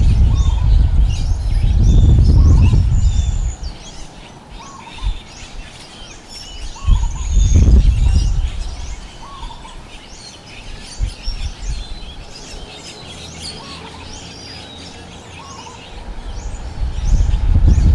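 Strong wind gusting and buffeting the microphone, with heavy gusts at the start, briefly about halfway through and again near the end. Birds chirp throughout, with one repeated short call every second or so.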